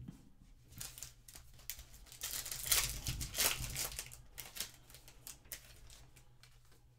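Foil wrapper of a trading card pack being torn open and crinkled: a run of crackling rustles, loudest about halfway through, then a few lighter crinkles as the wrapper is pulled off the cards.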